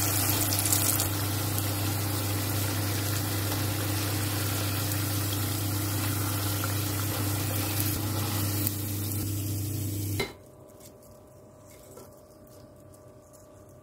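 Battered onion rings deep-frying in hot oil in a stainless steel pot: a steady sizzle with a low hum under it. It cuts off abruptly about ten seconds in.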